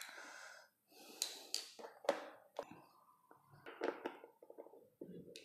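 Faint handling noise of cables and plastic connectors: a series of short scuffs and light clicks as a PS2 (mini-DIN) trainer-cable plug is fitted into the port on the back of a Flysky FS-i6X radio transmitter.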